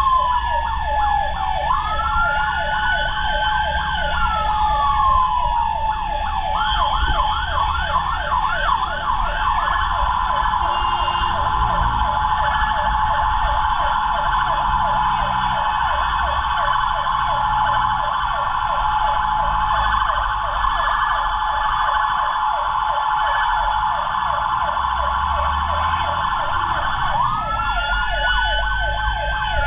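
Fire truck sirens. One wails in slow rising-and-falling sweeps, breaks into a fast yelp about seven seconds in, holds a steady pitch, and begins another rising wail near the end. A rapid pulsing siren tone repeats about three times a second throughout, over a low engine rumble.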